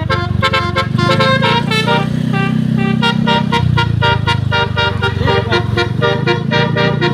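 Multi-tone telolet bus horn playing a quick melody of short, reedy notes, several a second, over a steady low hum.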